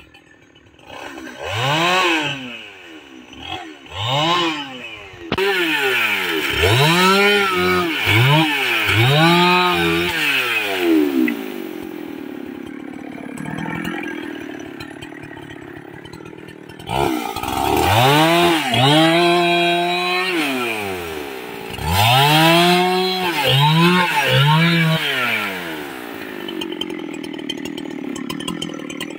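Two-stroke chainsaw revved up and let down again and again, a few revs held briefly at full throttle. It drops back to a lower, steady idle around the middle and again near the end.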